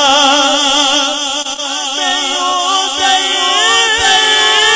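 A male naat reciter singing unaccompanied, drawing out long notes with heavy wavering vibrato and ornament, his pitch rising a little past the middle.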